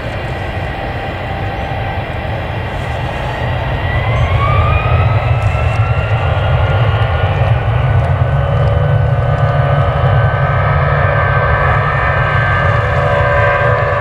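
Jet airliner engines spooling up: a whine rises in pitch about four seconds in and then holds steady over a low rumble that grows louder.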